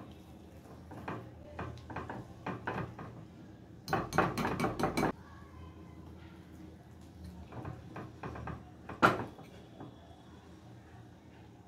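Wire whisk beating thick chocolate batter in a glass bowl, its wires clinking and scraping against the glass stroke by stroke. A fast flurry of strokes comes about four seconds in, and a single sharper clink near the end.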